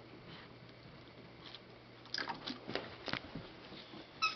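Small dog rummaging in a box of plush toys and mouthing one: faint rustling, then a handful of sharp crinkly clicks about two to three seconds in.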